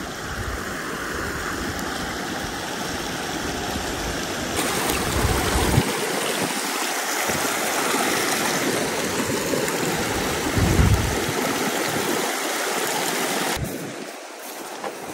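Small creek running over a shallow rocky riffle: a steady rush and babble of water that grows louder about four seconds in and drops back near the end, with two brief low rumbles along the way.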